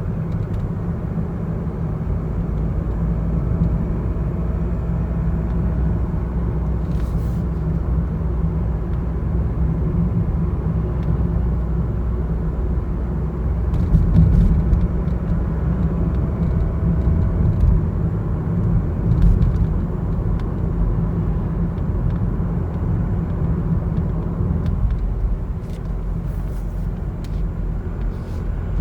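Mazda CX-30 XD's 1.8-litre four-cylinder diesel driving: a steady low road and engine rumble that swells briefly about halfway through, with a faint whistling tone that rises and falls now and then. This is the recorder-like whistle the owner hears above about 40 km/h, a fault that new turbocharger, partial engine, transmission and exhaust parts have not cured.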